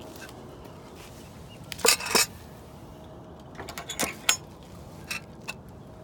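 Short sharp metallic clinks and rattles, a loud cluster about two seconds in and another around four seconds, then two lighter clicks: a pen door's metal latch and feed dishes being handled.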